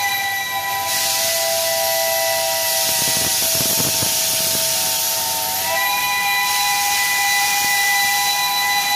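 Pacific-type (4-6-2) steam locomotive's whistle held in one long blast, several notes sounding together, with a slight step up in pitch about six seconds in. Steam hisses loudly underneath as the locomotive pulls away.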